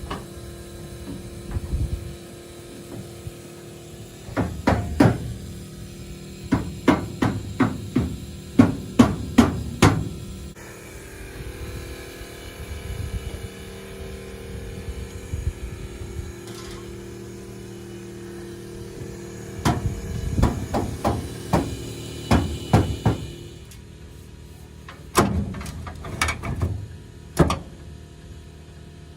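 Hammer blows in quick runs of several strikes, about two a second, with pauses between the runs, over a steady low hum.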